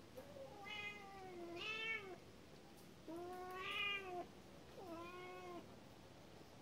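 Domestic cat meowing: four drawn-out meows in a row, each rising and then falling in pitch.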